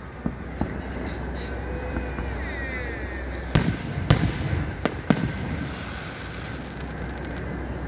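Aerial firework shells bursting in the sky. A couple of faint pops come early, then four sharp bangs in quick succession around the middle.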